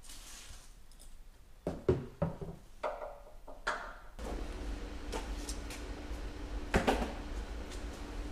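Several sharp knocks and clanks of metal being handled, then a steady hiss with a low hum that starts about four seconds in, with one more knock near the end.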